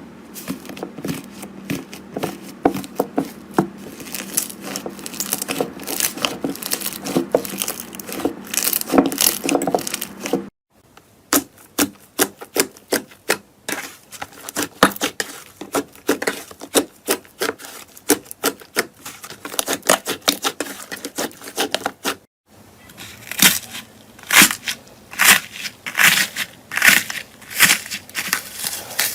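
Slime being worked by hand, giving dense runs of crackling clicks and pops, in three separate takes with a brief silent gap about a third of the way in and another about three-quarters through.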